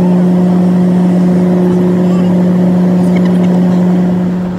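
Jet airliner cabin noise in flight: a loud, steady drone of engines and airflow with a constant low hum, fading out near the end.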